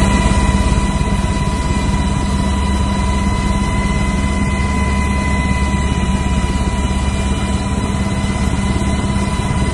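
A motor running steadily: a low, even rumble with a constant high-pitched whine over it, holding the same note throughout.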